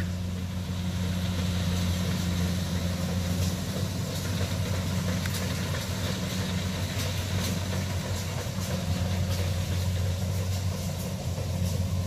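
Kubota DC68G combine harvester's diesel engine running steadily as the machine cuts rice, a low drone with a hum that eases a few seconds in and grows stronger again near the end.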